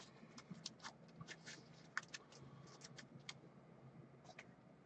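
Near silence: room tone with about a dozen faint, scattered clicks and taps. The sharpest come at the very start and about two seconds in.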